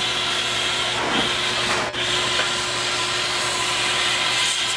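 Steam locomotive standing with steam escaping, giving a steady hiss with a faint low hum underneath; the hiss dips briefly about two seconds in.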